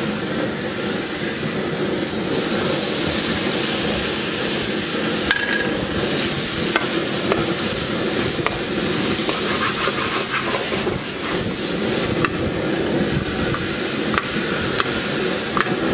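Beef and red onion stir-frying in a very hot wok: steady sizzling, with a wooden spatula stirring and scraping against the metal in many small clicks and knocks.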